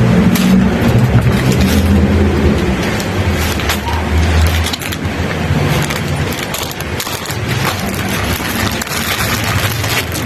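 A vehicle's engine running, with a low hum that shifts in pitch now and then, under frequent clicks and rattles.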